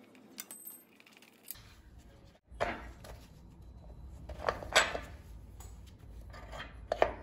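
A wrench clinking against metal at the scooter's front wheel axle as the small brake-lever screw is worked loose: several short, sharp metallic clicks with brief ringing, the loudest in the second half.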